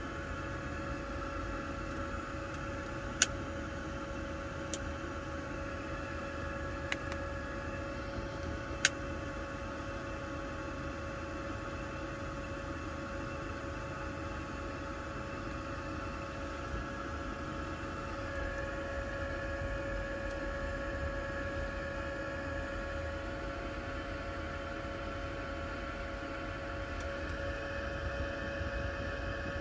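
Steady whir of a diesel parking heater's fan running in a closed car cabin, with a held hum and a few sharp clicks in the first nine seconds. The whir grows a little louder about eighteen seconds in.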